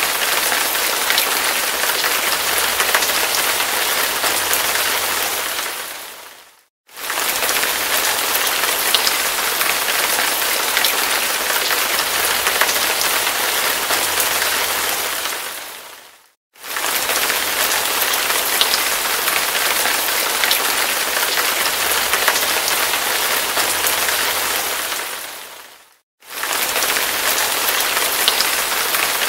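Hard rain falling steadily: a dense hiss with fine drop ticks. It fades away and cuts back in three times, about ten seconds apart.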